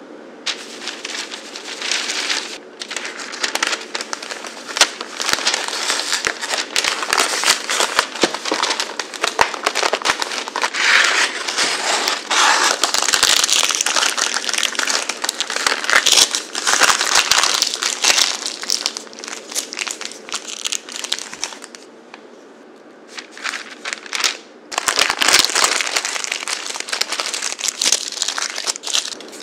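Parchment paper crinkling and rustling as it is handled, rolled up and twisted at the ends, in a dense run of crackles with a short lull about three-quarters of the way through.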